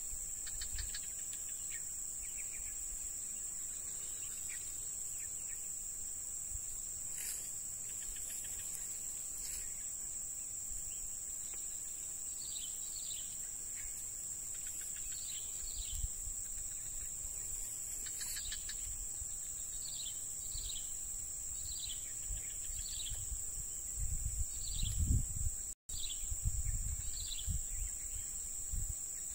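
Steady, high-pitched drone of insects, with a bird giving short falling chirps, repeated about once a second from about halfway through. Near the end, low rumbles of wind or handling on the microphone.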